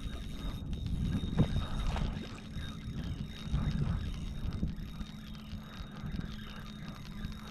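Boat's electric trolling motor humming steadily, with a few short knocks and rustles from handling on the boat, the loudest about a second and a half in.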